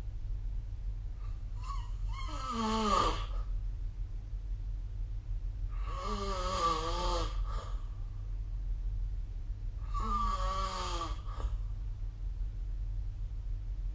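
A person snoring in deep sleep, three snores about four seconds apart, each a drawn-out, wavering rasp on the in-breath, over a steady low hum.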